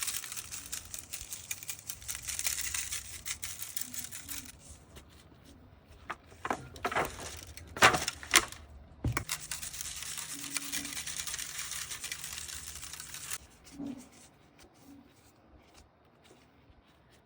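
Food-prep handling noise: two long stretches of steady hissing, each about four seconds, with a few sharp knocks and clacks between them.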